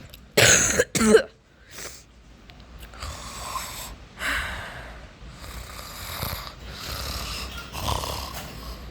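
A person's voice making snoring sounds for a sleeping character: a loud breathy sound near the start, then a run of snores about once a second.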